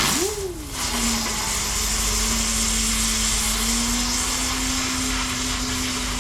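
Ground-spinner firework (chakkar) burning with a loud, dense hiss and a whirring hum from its spin. The hum climbs sharply as it ignites, drops back within a second, then holds steady.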